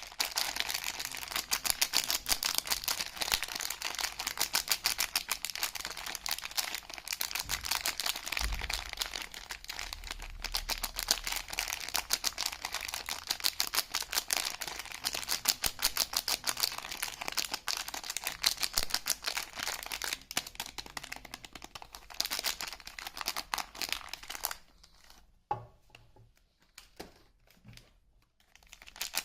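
Soap packaging crinkling and tearing as it is unwrapped by hand: a dense, continuous run of fine crackles. Near the end it stops, leaving a few soft handling knocks.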